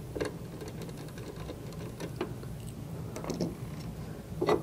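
Light, scattered clicks and taps of a 2.5 mm hex screwdriver working small screws out of a cable tie dispenser's faceplate, with a couple of sharper clicks near the end as the faceplate is gripped, over a low steady hum.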